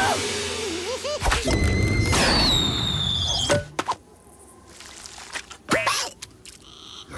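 Cartoon sound effects over background music: springy gliding tones in the first second, a string of thuds and knocks, and a falling whistle about two and a half seconds in.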